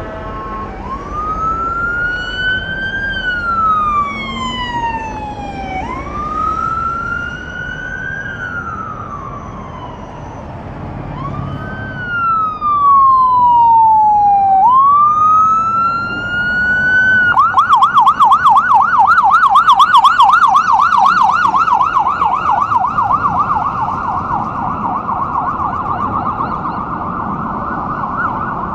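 Emergency vehicle's electronic siren in wail mode: four slow cycles, each rising quickly and falling away slowly. About two-thirds of the way through it switches to a fast yelp of several cycles a second, loudest just after the switch. Road traffic noise runs underneath.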